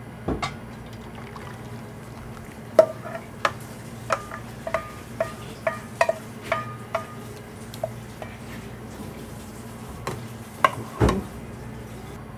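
Metal utensil clinking against a cooking pot while the curry udon is stirred, about two clinks a second with a short ringing tone, over a steady low hum. A louder clank comes near the end.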